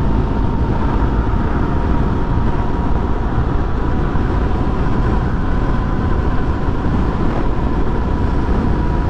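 A 2013 Honda XRE300's single-cylinder engine running steadily at cruising speed, under heavy wind rush on the microphone, with a thin steady tone running through it.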